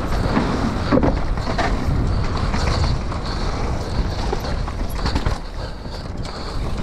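Wind rushing over an action camera's microphone during a fast downhill mountain bike run, with the tyres rumbling over dirt and the bike rattling. A few sharp knocks from the bike hitting bumps, the strongest about a second in.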